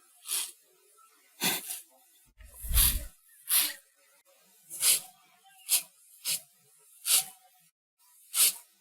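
Praying mantis giving a series of short defensive hisses, about nine in all at roughly one a second. A low rumble sits under one hiss about three seconds in.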